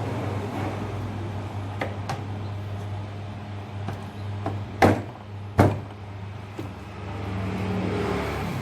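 Metal parts of a Bosch 11E breaker being fitted together during reassembly: a few light clicks, then two sharp knocks less than a second apart near the middle, over a steady low hum.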